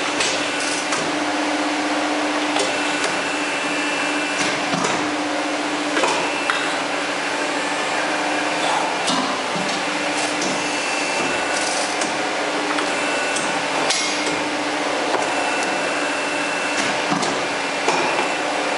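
CNC tube bending machine running through its cycle: a steady mechanical hum with a low tone that comes and goes, and scattered clicks and clunks.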